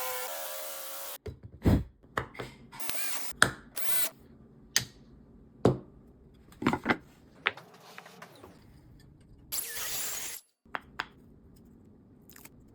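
A small power tool motor running briefly in short bursts, its pitched whine dying away in the first second, among scattered clicks and knocks of tools and wood being handled.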